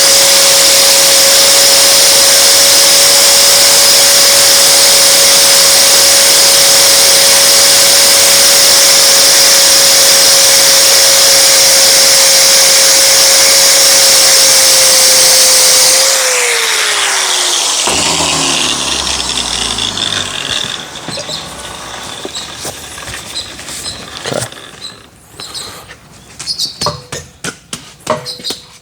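Power-tool wire wheel spinning against the metal of a concrete pump's slewing cylinder to clean it before new seals go on: a loud steady whine with a harsh brushing hiss. About 16 s in the motor is switched off and spins down with a falling pitch, followed by quieter knocks and rattles.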